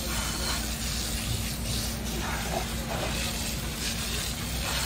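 Fire hose jet spraying water onto the underside of a burned car, a steady hiss.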